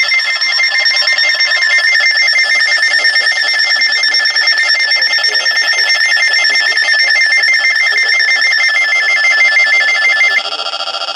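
Weather alert radios sounding their tornado-warning alarms together: loud, rapid, high-pitched beeping. Near the end a lower-pitched beeping alarm comes in and the highest beeping cuts off.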